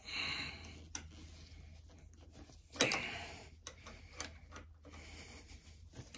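Small socket wrench working a bolt at a motorcycle's handlebar and lever mount: light, irregular metallic clicks and ticks, the loudest about three seconds in, with brief rustling of a fleece sleeve against the microphone.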